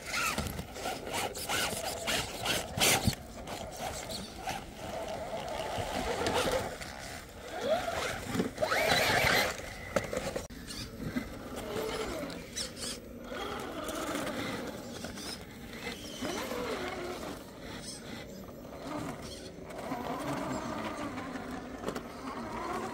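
Electric motor and gearbox of an RC rock crawler whining, rising and falling in pitch with the throttle, with scattered clicks and scrapes as it crawls over stones and rubble.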